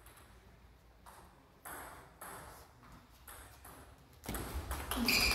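Table tennis ball clicking off the table and rackets during a point, a hit roughly every half second. Near the end the sound gets louder, with a brief pitched sound.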